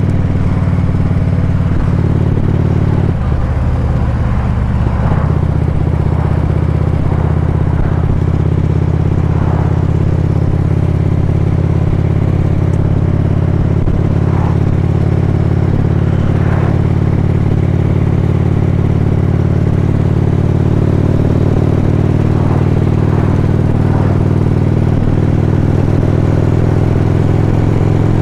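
Harley-Davidson Ultra Classic Limited's V-twin engine running at a steady cruise, with road and wind noise. The engine note changes briefly a few seconds in, then settles again.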